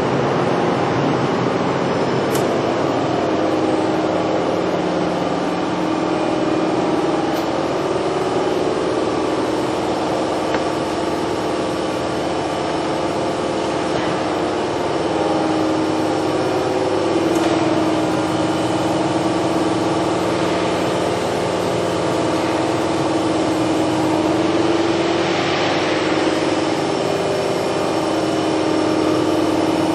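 Toshiba MPF-2114C bridge-type vertical machining center running under power: a steady machine hum with several steady tones, the strongest one wavering slightly.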